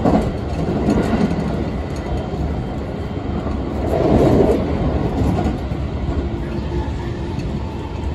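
Electric train running at speed, heard from inside the carriage: a steady rumble of wheels on rails that swells louder for about a second around four seconds in.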